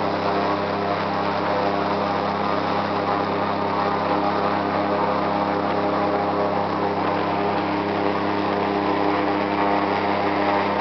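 Airboat's engine and propeller running steadily under way, an even drone that holds one pitch throughout.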